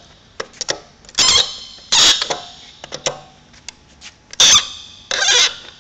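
Locking pins on a Tiger Bretby cable handler being turned one after another with a socket tool, locking each segment's top and bottom together. A sharp squeak comes with each turn, four in all, with small clicks of the tool on the pins between them.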